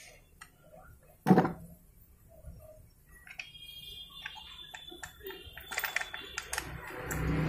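Metal parts of a Hero Maestro scooter's belt transmission knocking and clicking as they are fitted back by hand: one sharp knock about a second in, then a run of light clicks with a thin high squeak. A low steady rumble rises near the end.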